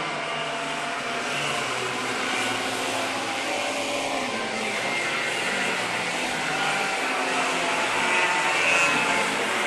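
Racing kart engines running at race pace, their pitch wavering up and down.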